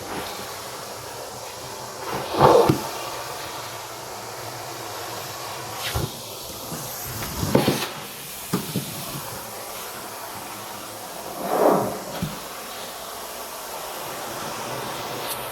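Dyson vacuum cleaner running with a steady hissing rush. Three short, louder surges come about 2.5, 7.5 and 11.5 seconds in, with a few smaller knocks between them.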